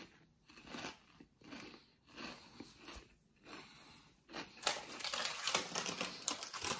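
Crunchy fried pork rinds being chewed, a soft crunch about every half second. From about four seconds in there is a louder, denser run of crackling and crinkling.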